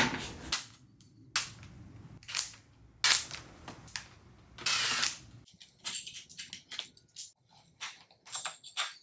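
Hand tools and bike parts being handled: a string of sharp clicks and knocks, with a longer rasping burst about five seconds in and quicker small clicks near the end.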